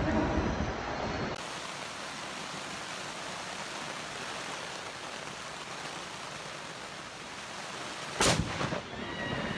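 Low wind rumble that cuts off about a second in, then a steady hiss of heavy rain. About eight seconds in comes a sudden, loud crack of a close lightning strike.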